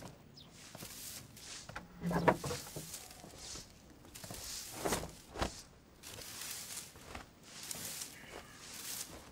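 Long-handled broom sweeping dusty brick paving, with short scratchy strokes about once a second.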